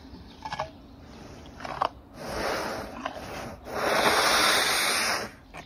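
An elephant's trunk sniffing and blowing at an apple held in a hand. There are a couple of short sniffs, then a softer breath, then a loud rush of air lasting about a second and a half near the end.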